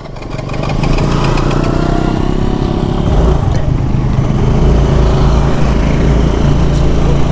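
Motor scooter's engine running at riding speed, growing louder over the first second and then holding steady, with wind rumble on the microphone.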